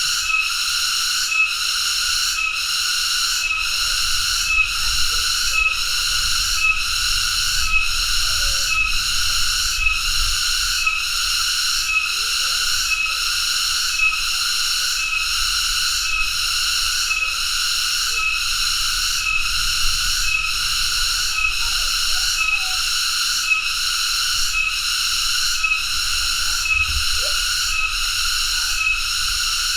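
Cicada (tonggeret) calling: a loud, high, shrill buzz that swells in a steady pulse about one and a half times a second.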